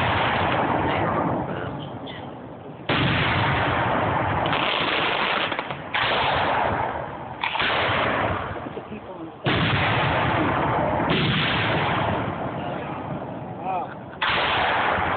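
Fireworks shells bursting overhead one after another: about six sharp booms, each trailing off in a rumbling echo over a second or two.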